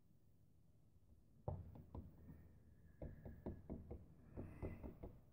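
A single knock, then about a second and a half later a quick run of light knocks and taps, as the emptied plastic paint cup and a palette knife are set down and handled on the work table.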